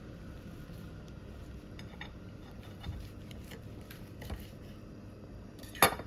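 Light taps and clicks of objects being handled on a table, with one sharp clack near the end, over a steady low background hum.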